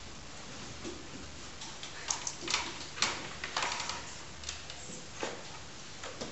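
Classroom during quiet written work: scattered light clicks and short rustles from pens, paper and footsteps on a hard floor, most of them in the middle of the stretch, over a steady low room hum.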